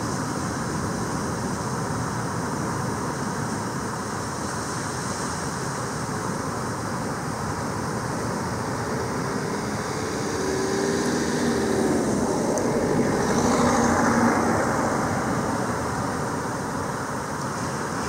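Steady outdoor background noise, with a motor vehicle passing: its engine grows louder over several seconds, peaks a little past the middle, then fades.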